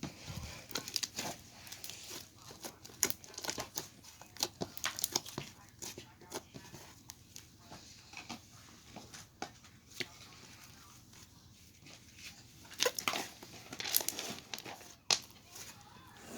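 Slime being squished and stretched by hand, making irregular small sticky clicks and pops.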